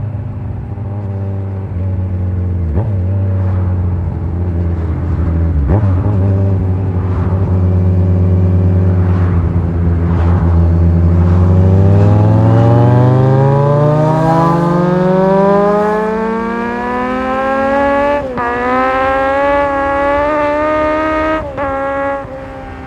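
Kawasaki Z1000's inline-four engine holding a steady low note while riding, then revving up in a long rising pitch over several seconds. The sound breaks briefly twice near the end, as on quick gear changes.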